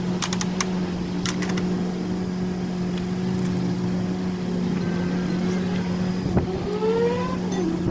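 Tow truck engine idling with a steady hum. A few metallic clicks come in the first second or so, a single sharp knock about six and a half seconds in, and then a short rising whine.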